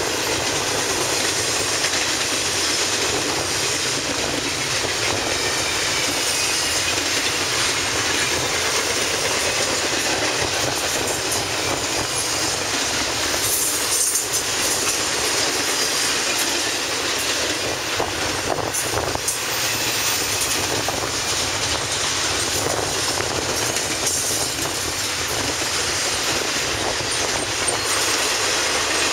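Intermodal freight train's container cars rolling past close by, with a steady rush of wheel and rail noise.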